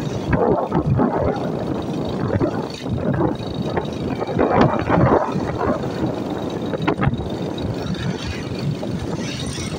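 Steady road-traffic noise heard from a vehicle moving along a town road: engine and road rumble, with louder swells about half a second and five seconds in.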